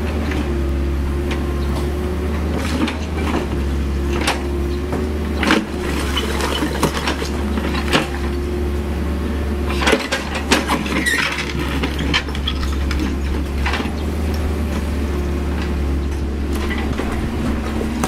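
CAT 304E CR mini excavator's diesel engine running steadily while the hydraulics work the boom and bucket. A dozen or so sharp knocks and scrapes come from the steel bucket biting into soil and stones.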